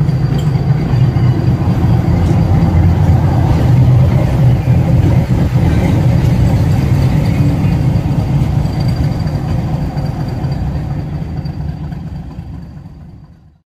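YDM4 metre-gauge diesel locomotive's ALCO six-cylinder engine running with a steady low rumble and a faint steady high whine above it. The sound fades out over the last few seconds.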